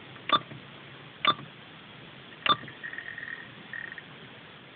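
Three sharp clicks about a second apart, then a few short high electronic beeps: buttons pressed on the steering-wheel remote of a Sony car stereo, with the stereo stopped between tracks.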